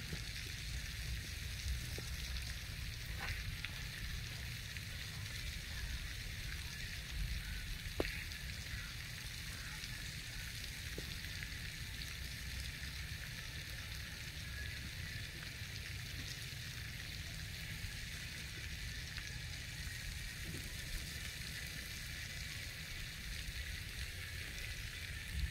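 Steady outdoor hiss with a fluttering low rumble of wind on the microphone, and a couple of faint clicks about 3 and 8 seconds in.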